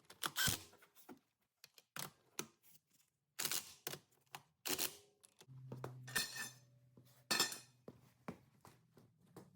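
Hand tools and lug nuts clinking and knocking in a string of sharp, irregular metallic clicks as a wheel is refitted by hand. A steady low hum comes in about halfway through.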